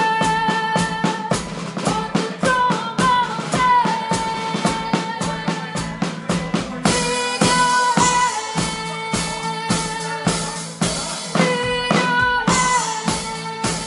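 Live rock cover: a woman sings long held notes over strummed acoustic guitar and a drum kit keeping a steady driving beat. The drums get bigger, with cymbals, from about seven seconds in.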